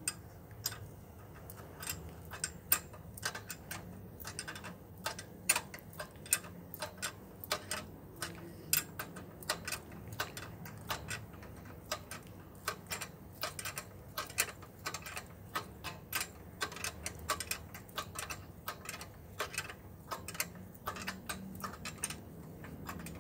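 Ratchet wrench clicking in quick, uneven runs of strokes as an alternator bolt is tightened to lock in the new fan belt's tension.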